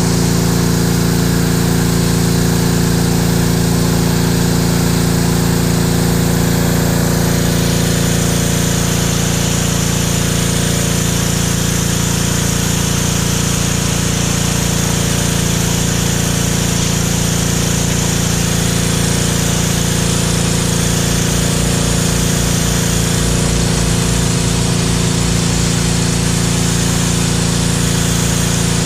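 PowerStroke 2200 PSI gas pressure washer running steadily at full throttle, its engine note constant, with the hiss of the high-pressure spray from the green nozzle blasting concrete.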